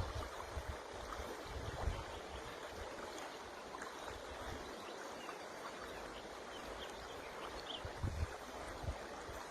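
River water flowing with a steady rushing noise, with low rumbles coming and going underneath.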